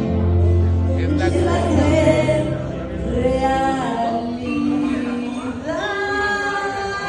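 Karaoke: voices singing into a microphone over a music backing track.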